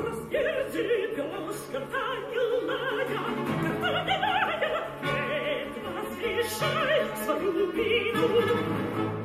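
Operatic solo voice singing with wide vibrato over sustained orchestral accompaniment: a classical recording played back through a compact speaker being tested.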